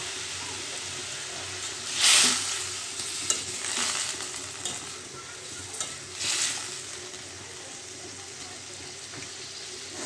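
Potato and yam pieces with spices sizzling in hot oil in a kadai, just after a splash of water has gone in to braise the masala so it doesn't burn. The sizzle swells loudly about two seconds in and again about six seconds in.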